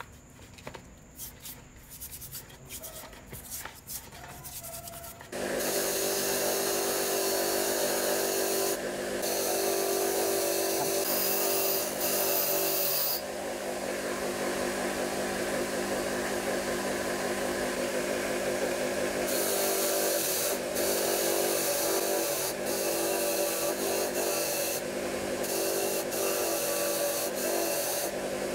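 Faint splashing of water as a motor stator is washed by hand, then about five seconds in a bench grinder fitted with a wire wheel starts up and runs steadily. Its motor hums while small metal drill parts, a cooling fan and a metal housing, are pressed against the spinning wire brush, scratching off rust and dirt.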